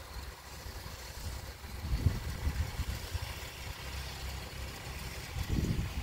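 Snow blower engine running, an uneven low rumble that swells about two seconds in and again near the end.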